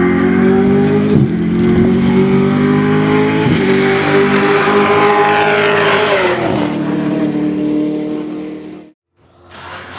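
Holden Commodore V8 Supercar engine at high revs as the car runs toward and past, with short breaks in the note about a second in and again a few seconds later. The pitch drops as it goes by, then the sound fades and cuts off abruptly near the end.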